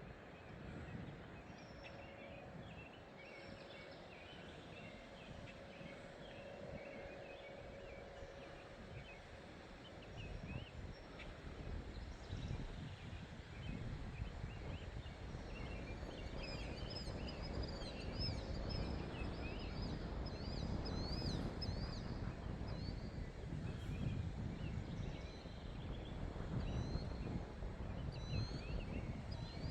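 Wild birds chirping and singing while wind rumbles on the microphone, the rumble growing stronger from about ten seconds in as a storm front approaches. A faint steady hum fades out about nine seconds in.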